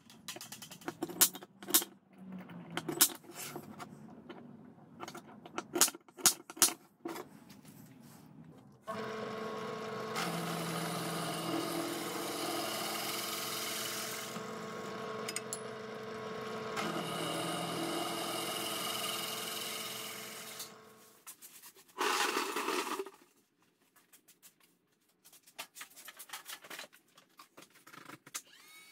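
A bench drill press running steadily for about twelve seconds while drilling a flat steel bar, after several seconds of sharp metal clicks and taps. A brief loud noisy burst follows near the end, then faint clicks.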